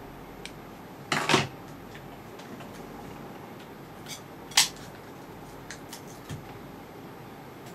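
Light clicks and taps of small metal tweezers being handled and set down: a double click about a second in, one sharper click midway, and a few faint ticks between.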